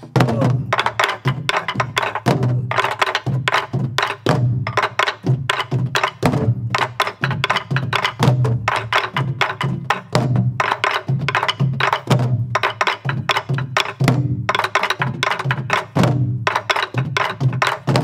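Several sori-buk (Korean barrel drums) played together in the dongsalpuri rhythm (deong ttak-ttak kung-ttak kung-ttak). Deep thuds on the drumheads alternate with sharp wooden clacks of the stick on the shell, in a quick, steady, repeating pattern.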